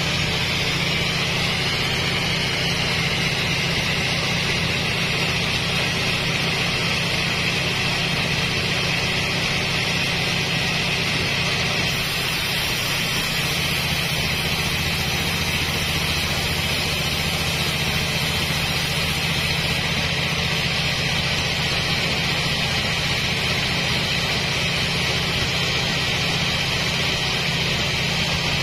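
Single-cylinder stationary diesel engine running steadily, turning a large flywheel pulley and V-belts that drive the sawmill. A low steady drone with a higher whine over it, which climbs a little in the first couple of seconds.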